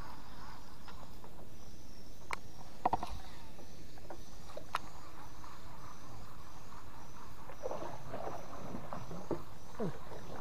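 River ambience heard from a small boat on the water: a short high chirp repeats about twice a second over a steady background, with a few sharp knocks a few seconds in and low lapping and sloshing of water near the end.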